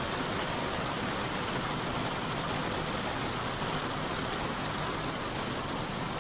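Heavy rain and wind in a severe storm, a steady, even rush of noise.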